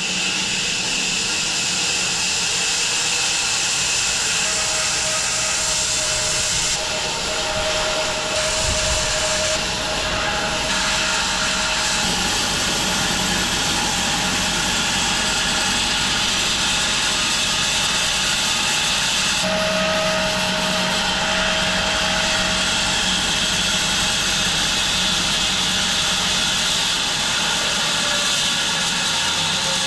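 Home-built 6 ft wide bandsaw mill running steadily, its blade sawing through a walnut log.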